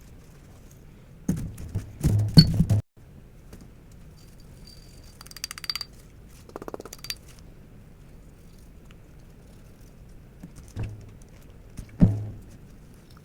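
Steel parts of a CZ Shadow 2 pistol being handled: a burst of clacking and clatter, then lighter metallic rattling with a brief ring, and two sharp knocks near the end as parts are set down.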